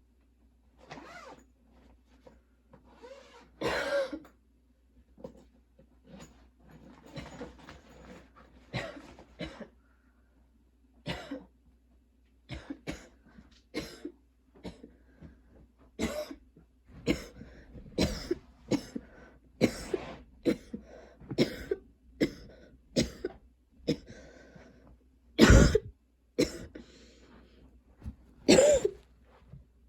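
A girl coughing in repeated fits, with some throat clearing; the coughs come closer together from about halfway through, and the loudest come near the end. It is a persistent cough that her current medication is not controlling.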